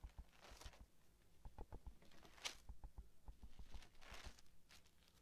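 Near silence: faint scattered small clicks and taps, with three soft breath-like hisses spread through the pause.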